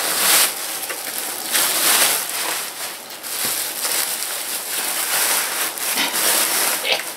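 Bubble wrap and plastic wrapping crinkling and rustling as it is pulled off by hand, a crackling noise that swells and fades several times.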